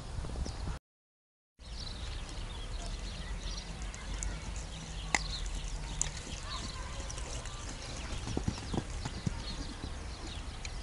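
Hoofbeats of a horse cantering on an arena's sand footing. All sound cuts out briefly just under a second in.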